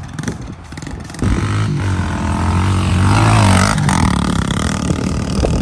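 Yamaha TT-R90 mini dirt bike's small four-stroke single revving as it is ridden across the grass, getting much louder about a second in as it comes close. Its engine note climbs and then drops around the middle.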